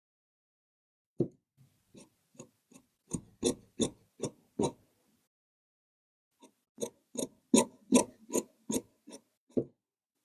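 Tailor's shears snipping through fabric, a run of crisp snips about three a second, then a pause and a second run of snips.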